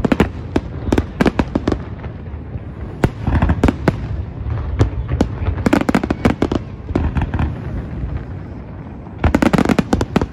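Aerial fireworks display: shell bursts and crackling reports going off in quick succession, easing slightly about three-quarters of the way through, then a dense flurry of bangs near the end.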